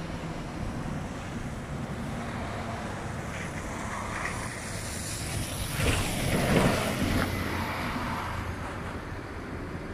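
Street traffic at an intersection: a city bus and cars drive past, and one passing car grows loud a little past the middle before fading.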